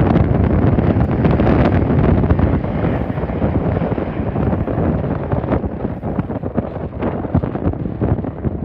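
Wind buffeting the microphone over a low jet airliner rumble that slowly fades.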